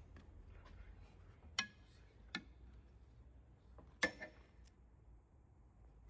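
Three sharp metallic clinks with a short ring, about a second and a half in, just after two seconds and about four seconds in, from metal tools or parts knocking together; the last one is the loudest.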